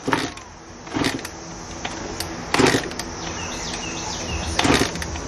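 Honda CR85 two-stroke dirt bike being kick-started after a full engine rebuild, without catching. There are four kicks a second or two apart, each a short clunk of the kickstarter as the engine turns over.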